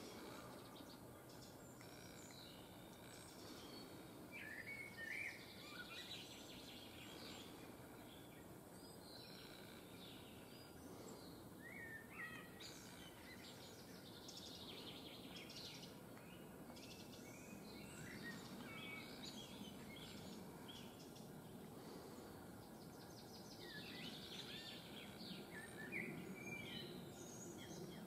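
Birds chirping and calling faintly now and then over steady low outdoor background noise.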